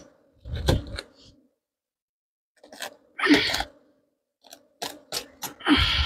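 Clear plastic wrap being pulled and torn off a bundle of new wooden hive frames, crinkling in several short bursts, with sharp clicks of the wooden frames knocking together.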